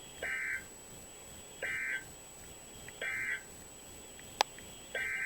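Emergency Alert System SAME data bursts: three short, identical bursts of buzzing, warbling digital tone about a second and a half apart, the end-of-message code closing the marine warning. Then comes a sharp click, and near the end a longer burst begins: the header of the next alert.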